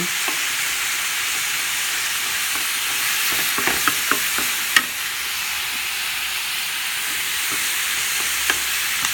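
Green beans frying in hot oil in a pan, a steady sizzling hiss, with a few sharp clicks from stirring around the middle, the loudest nearly five seconds in.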